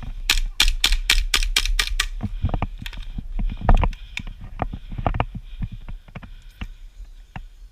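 Airsoft gun firing a quick string of about nine shots, roughly five a second, followed by scattered knocks and thuds.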